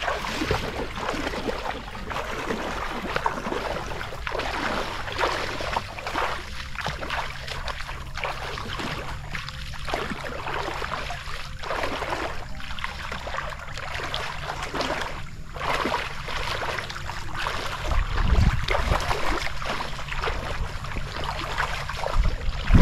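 Water sloshing and splashing irregularly as a person wades waist-deep and pushes through it. A low rumble on the microphone comes in near the end.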